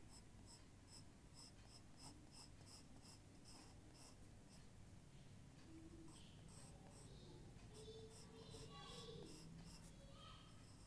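Faint drawing strokes on paper: quick repeated scratches, about three to four a second, stopping for about two seconds midway and then resuming.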